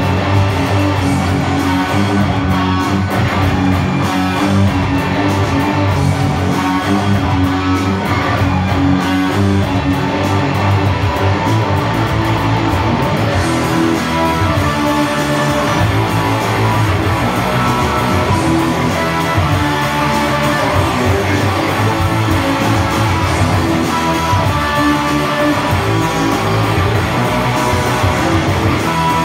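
Solid-body electric guitar being played through an amplifier, a continuous line of shifting notes.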